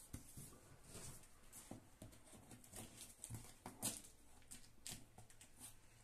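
Faint, scattered light taps and rustles of hands handling a cardboard carton, with one slightly louder tap a little before the fourth second.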